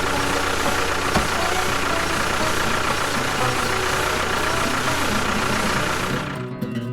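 A small engine running steadily with a steady whine over a low rumble; it fades out near the end.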